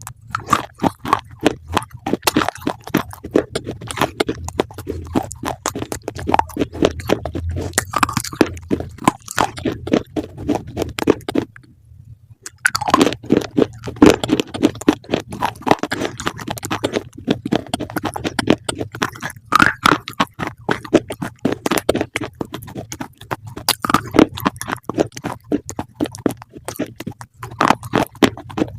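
Close-up crunchy chewing: fast, irregular crackling bites and munching, pausing briefly about twelve seconds in before carrying on.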